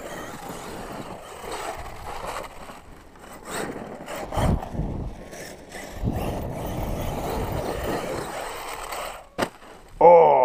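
Loose gravel crunching and scraping unevenly, with a few sharp knocks.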